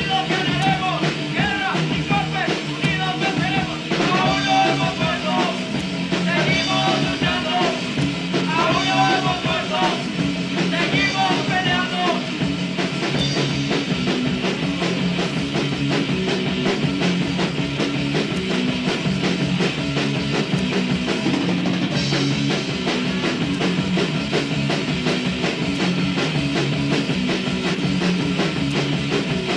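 Punk rock song played by a full band with drums, guitar and singing; the vocals stop about twelve seconds in and the band plays on.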